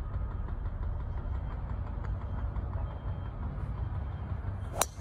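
Steady low rumble, then near the end a single sharp crack: a driver striking a golf ball off the tee.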